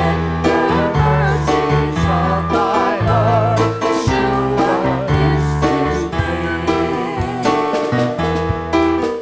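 Worship song: voices singing over keyboard accompaniment with held bass notes.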